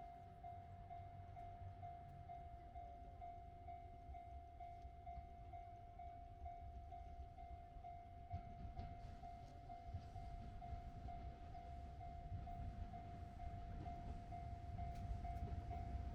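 Japanese level-crossing warning bell ringing, an electronic tone repeating about twice a second. From about halfway through, the low rumble of an approaching diesel train grows steadily louder.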